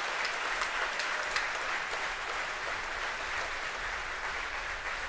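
Crowd applauding and cheering, a dense wash of clapping that eases slightly toward the end: celebration of the Falcon 9's first-stage separation.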